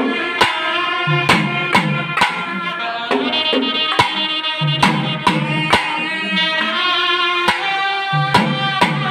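Naiyandi melam folk band playing: wind instruments hold a shrill, sustained melody over sharp, irregular strokes on a thavil, a stick-beaten barrel drum.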